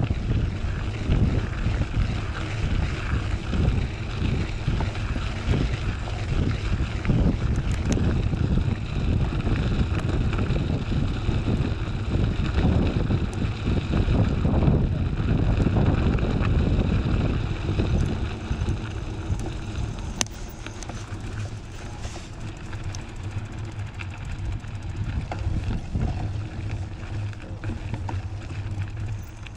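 Wind buffeting the microphone over the rumble of a knobby mountain-bike tyre rolling on gravel while riding, with many small ticks from the stones. It eases somewhat a little past the middle.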